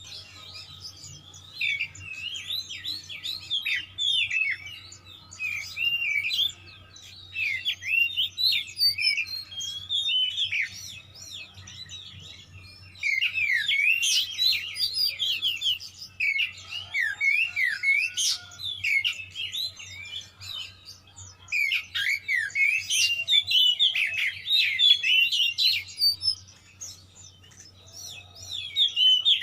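Oriental magpie-robin (kacer) singing hard: rapid phrases of quick rising and falling whistled notes, broken by short pauses. It is the agitated, 'shooting' fighting song of a bird in top singing form. A faint low hum runs underneath.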